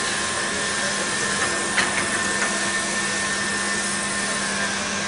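CNC tube bending machine running: a steady machine hum, with a few short clicks about two seconds in.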